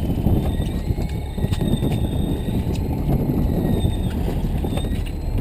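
Boat's motor running steadily, with a few light clicks over it.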